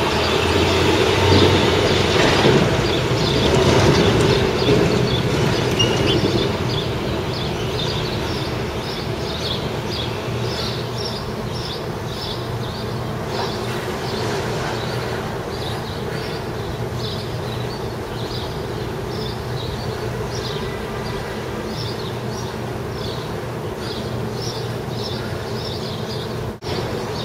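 Steady low mechanical rumble with a hum, louder over the first six seconds or so. Through the rest, short high chirps repeat about one and a half times a second.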